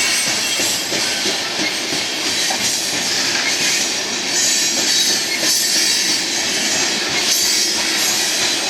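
Loaded coal train rolling past, its steel wheels squealing and clacking on the rails in a steady loud wash that swells and fades every second or so.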